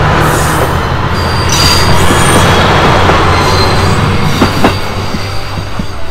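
KiHa E130 series diesel railcar passing close by: its diesel engine running with a steady low hum and its wheels squealing high on the rails. There are two sharp clacks from the wheels about four and a half seconds in, and then the sound eases off a little.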